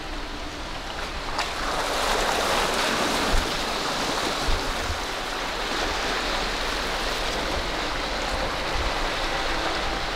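Jeep Wrangler driving slowly along a dirt forest trail: a steady rushing noise of tyres and wind, growing louder about a second and a half in, with a few low thumps.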